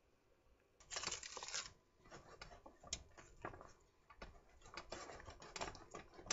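Utensil stirring thick brownie batter in a bowl: irregular scraping and clicking against the bowl. A louder scrape comes about a second in.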